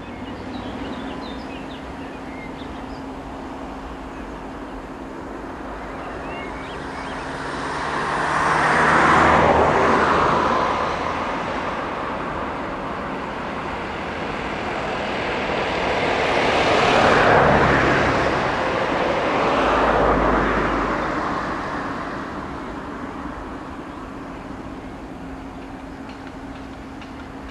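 SNCF diesel locomotive hauling a freight train of car-carrier wagons, running at low speed as it approaches, with a steady hum underneath. Three louder swells of rushing noise come through, about 9, 17 and 20 seconds in.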